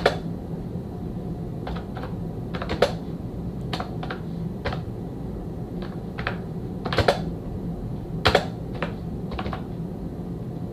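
Ubotie Sweet wireless keyboard being typed on one-handed: scattered, unhurried keystroke clicks at an uneven pace, over a steady low hum.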